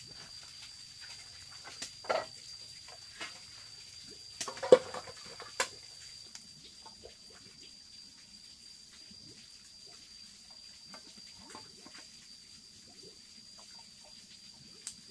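Kitchen washing-up sounds: a few sharp knocks and clinks of dishes being handled, about two and five seconds in, then faint water splashing and small clicks. A steady faint high whine runs underneath.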